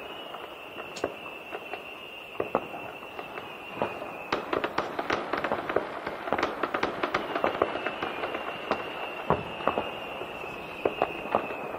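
Fireworks and firecrackers going off across a city, heard from afar: a dense stream of sharp bangs and pops, heaviest about four seconds in and again near the end. A faint steady high tone sounds beneath them for the first few seconds and returns in the second half.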